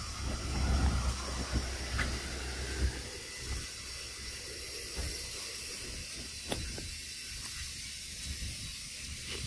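Outdoor ambience: a steady high hiss, with wind rumbling on the microphone during the first three seconds and a few faint clicks.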